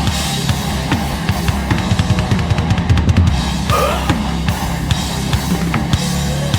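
Live band music: a drum kit played hard, with kick drum, snare and cymbal hits over held low bass notes.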